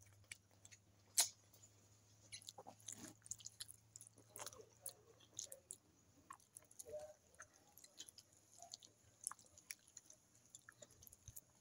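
Faint chewing and small wet mouth sounds of someone eating rice and fish by hand, with scattered soft clicks and one sharper click about a second in.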